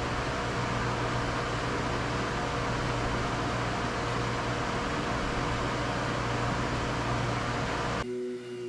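A machine running steadily, an even whirring hiss over a low hum, which cuts off suddenly near the end.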